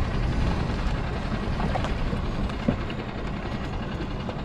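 Steady low rumble of wind and sea around a small boat while a crab pot is hauled up by hand on its rope, with a couple of light knocks.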